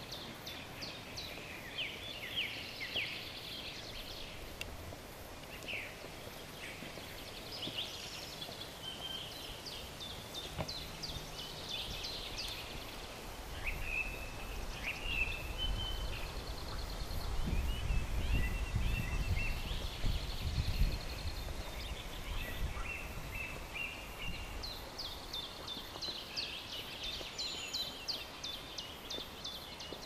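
Woodland songbirds chirping and trilling, with calls overlapping throughout. A low rumble swells up from about halfway through and fades again a few seconds later.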